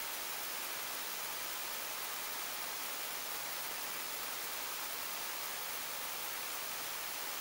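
Steady high-pitched hiss of microphone self-noise in an otherwise quiet, empty room, with no knocks, clicks or voices.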